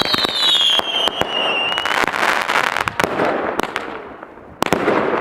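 A 50-shot consumer firework cake firing: a rapid run of sharp shots and bursts, with a high whistle falling in pitch over the first two seconds. The shots ease briefly about four and a half seconds in, then pick up again.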